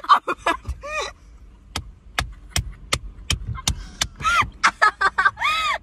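Young women laughing hysterically in a car, breaking into high-pitched shrieks near the end. In the middle there is a run of about six sharp smacks, roughly two a second.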